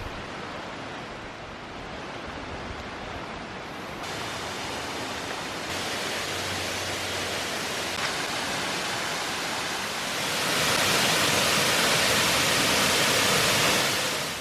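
Waterfall rushing: a steady hiss of falling water that grows louder in steps and is loudest over the last few seconds, then drops away at the very end.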